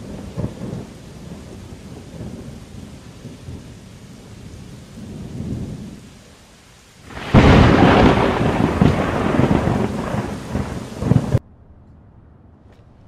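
Rain falling steadily, then a loud rumble of thunder about seven seconds in that goes on for around four seconds and stops suddenly, picked up by a security camera's microphone.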